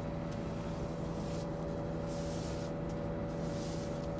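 An engine running steadily at constant speed, a continuous even hum, with two short hissing rustles in the middle.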